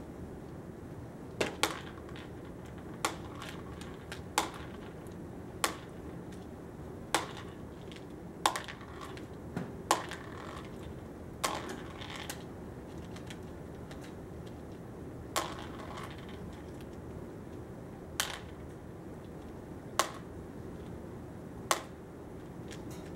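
Plastic beads picked out with metal forceps and dropped one at a time into a plastic bowl: sharp single clicks at irregular gaps of one to three seconds, about fifteen in all, thinning out in the second half, with a light rattle of beads around some of them.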